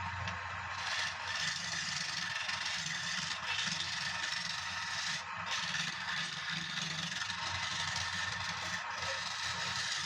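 Wood lathe spinning a palm-wood bowl while a tool scrapes against the turning wood, a steady rough scraping.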